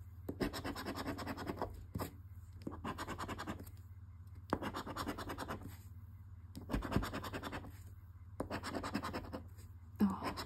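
Scratching the coating off a paper scratch-off lottery ticket, in about six short bouts of quick strokes with brief pauses between as each number is uncovered.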